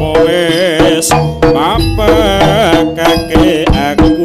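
Live Javanese jaranan music: kendang drumming and gongs under a sustained, wavering melody line.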